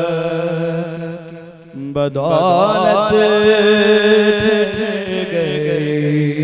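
A young man's voice chanting Urdu devotional verse unaccompanied, holding long notes. After a short break about two seconds in, the voice turns in an ornamented, wavering run, then settles on a long held note.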